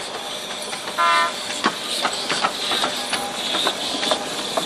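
Narrow-gauge steam locomotive 764.411R moving slowly, with irregular clanks and knocks from its wheels and running gear and a hiss of steam. A short whistle toot sounds about a second in.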